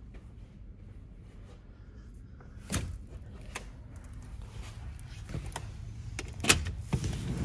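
Sliding balcony door being handled: a few short knocks and clunks, the sharpest near the end, over a low steady background that grows louder at the end.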